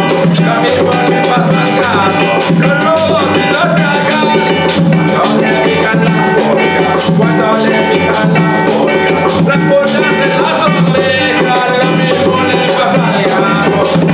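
Small band playing a song: a man singing lead over electric bass, acoustic guitar and a hand shaker, with a steady bass pulse.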